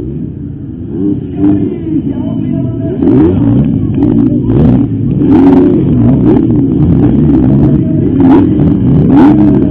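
Several motocross bikes revving hard together, their engine notes rising and falling over one another, getting much louder about three seconds in.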